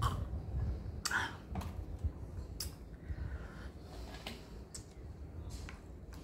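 A glass of iced drink set down on a table with a clink about a second in, followed by a scattering of light clicks and taps at uneven intervals.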